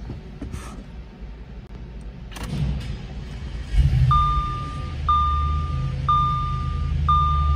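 Audi S5 engine cold-started. After a couple of clicks it fires nearly four seconds in and settles into a steady idle. A dashboard warning chime beeps about once a second over it.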